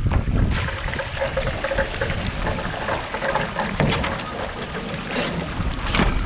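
Water rushing and splashing around a Moth sailing dinghy under way, with wind on the microphone. A few sharp splashes stand out over the steady rush.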